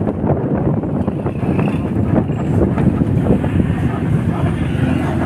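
Steady street traffic and vehicle rumble, with wind buffeting the microphone.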